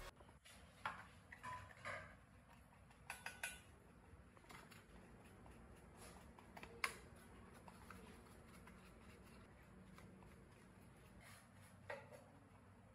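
Faint, scattered light clicks and knocks of gloved hands handling an old, rusty mini flour mill's metal motor housing and stand, with one sharper knock about halfway through.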